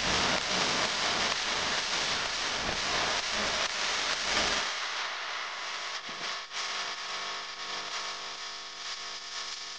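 Small motorcycle engine running, loud and noisy for about the first half, then settling to a steadier, quieter hum about halfway through.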